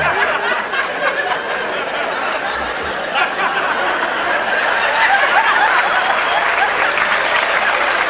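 Live audience applauding and laughing, the applause swelling a little about halfway through.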